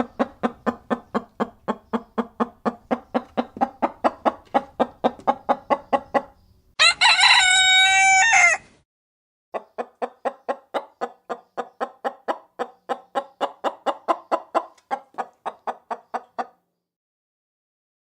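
Chicken clucking in a fast, even run of about five clucks a second, broken in the middle by a rooster's crow of nearly two seconds, then clucking again for several seconds.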